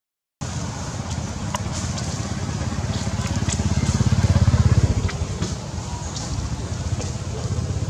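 A motor vehicle's engine running with a low, even pulsing that grows louder to a peak about four to five seconds in and then eases off, with a few light clicks scattered over it.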